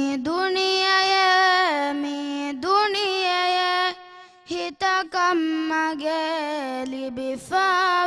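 A female voice singing alone without accompaniment, an Islamic devotional song in long held notes that glide and waver, with a short break about four seconds in.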